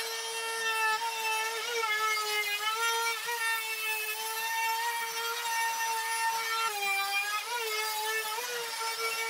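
Compact trim router running at full speed while it cuts the edge of a poplar frame: a loud, steady high whine whose pitch dips briefly several times as the bit takes load in the wood.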